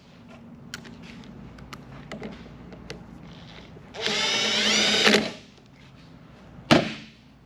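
Power drill spinning a nut onto a cut-down threaded stud in one burst of a little over a second about four seconds in, its pitch rising as it speeds up. Small metal clicks around it and a single sharp knock near the end.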